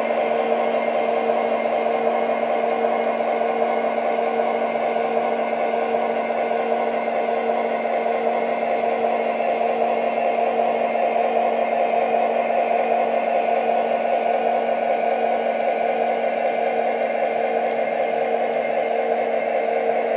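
O-gauge model freight train running steadily past: double-stack cars' wheels rolling on the track, with a steady hum.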